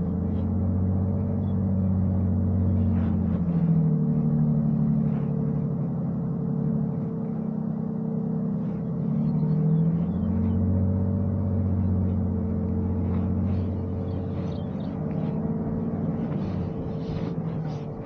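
A 2023 Toyota Sequoia TRD Pro's twin-turbo V6 hybrid powertrain crawls at walking pace over an off-road course. Its low engine hum swells for the first few seconds, eases off, then comes back from about ten seconds in until near the end. A steady faint whine runs underneath.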